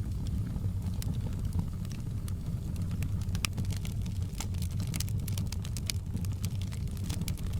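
Wood fire in a fireplace crackling, with frequent sharp pops and snaps over a steady low rumble of burning; the pops come thickest around the middle.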